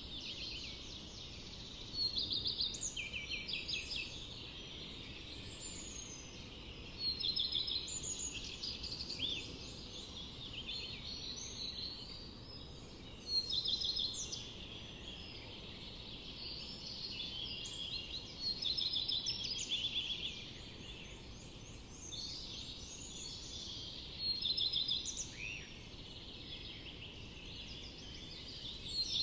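Forest birds singing: one bird repeats a short trilled song phrase about every five seconds over a continuous chorus of other birdsong.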